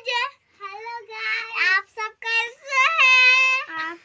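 A young girl's high voice calling out in a sing-song way, drawing several syllables out into long held notes, the longest near the end.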